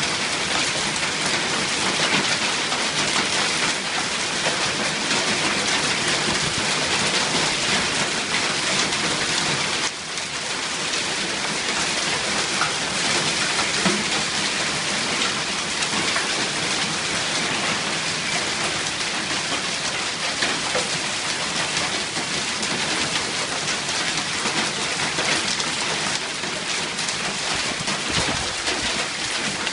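Hailstorm: hail and rain pelting down on outdoor surfaces as a dense, steady patter of countless small hits.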